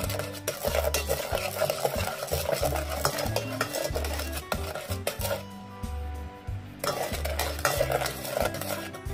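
A plastic rice paddle stirring and scraping coconut milk and sugar around the metal inner pot of an electric rice cooker, pausing for a moment a little past the middle. Background music with a steady bass beat runs underneath.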